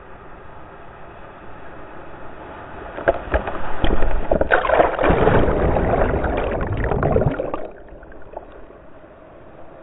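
Whitewater rushing, then water crashing and splashing over a kayak's bow as it drops through a breaking wave, loud for about four seconds from about three seconds in before falling back suddenly to a steady rush.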